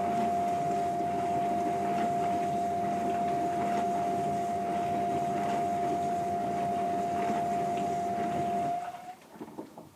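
Panasonic NP-TA4 dishwasher running with a steady high-pitched whine over its wash noise, an abnormal noise that the machine has recently started making. The whine and the running sound stop about nine seconds in, leaving a few faint knocks.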